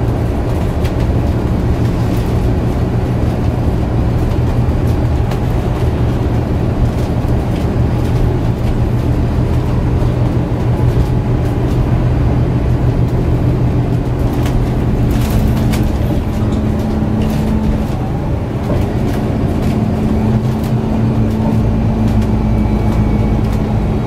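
Inside a MAN A69 city bus under way: its 10.5-litre six-cylinder MAN D2066 turbo-diesel hums steadily through the cabin along with road noise, and the engine's note changes about two-thirds of the way in. Light clicks and rattles come from the body fittings now and then.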